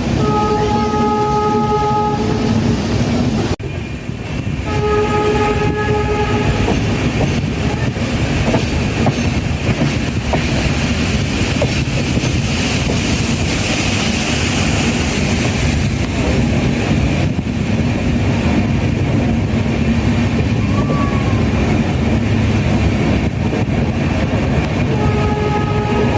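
Train rumbling and clattering along the track while its horn sounds: one steady blast of about two seconds at the start, a second about five seconds in, and a third beginning near the end.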